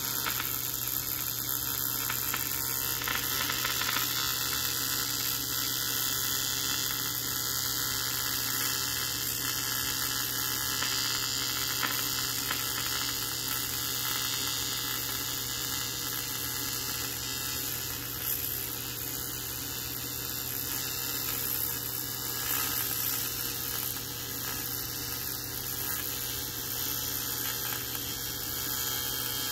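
AC TIG welding arc on aluminum exhaust tubing: a steady electrical buzzing hum with a hiss over it.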